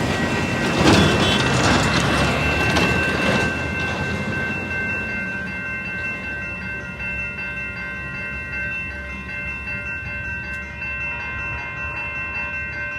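SMART diesel multiple-unit train (cars 107 and 108) passing, with wheel clatter and rumble loudest over the first three seconds or so, then a steadier rumble. Steady high ringing tones sound throughout.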